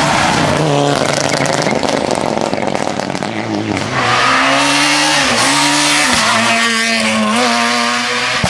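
Rally cars at high revs on a tarmac stage: the engine pitch climbs and drops sharply as the drivers shift gears and lift off the throttle. The sound changes about four seconds in, when the engine note becomes louder and steadier.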